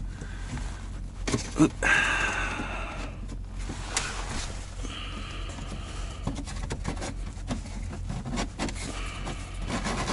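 A pleated paper air filter for a truck's bunk heater being handled and slid into its plastic housing by hand: rustling and scraping with scattered small clicks, over a steady low hum.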